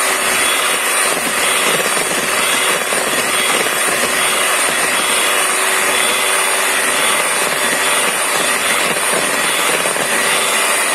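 Electric hand mixer running steadily, its beaters whisking eggs and fruit juice into a froth in a bowl: a constant motor hum and whine.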